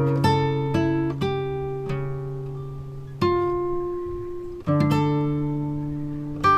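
Background music: slow acoustic guitar, plucked notes and chords left to ring and fade.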